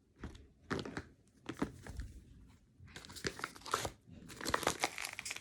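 Crinkling and tearing of a homemade taped paper blind bag being pulled open by hand, in short irregular bursts that grow busier near the end; the tape is strong and hard to tear.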